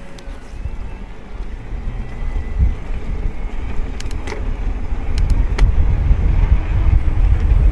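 Wind buffeting the microphone, a low rumble that grows louder toward the end, with a few sharp clicks around the middle.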